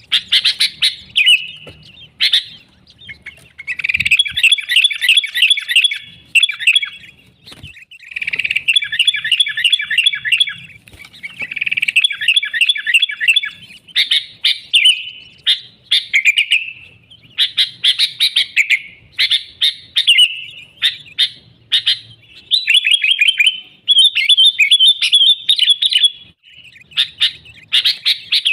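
Sooty-headed bulbul (kutilang) singing loudly and continuously in fast chattering phrases of quick notes, each a second or two long, repeated with short pauses.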